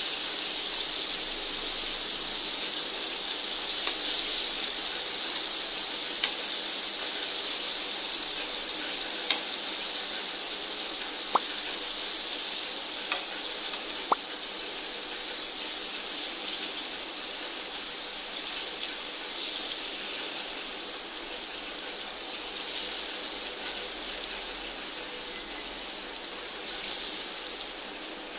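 Hot oil sizzling steadily around batter-coated chicken wings deep-frying, a dense even hiss with a couple of sharp clicks partway through; the sizzle slowly dies down.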